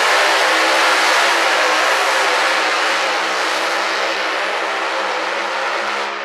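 Two-wheel-drive competition pulling tractor running flat out as it drags a weight-transfer sled: a loud, steady engine note that eases as the tractor moves away, then drops off sharply at the end.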